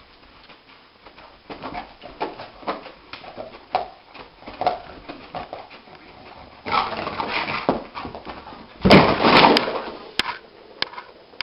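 A dog whimpering in its sleep, giving a series of short muffled whimpers and yips as its legs run. Louder scuffling follows, with the loudest burst about nine seconds in, as it scrambles up off the carpet.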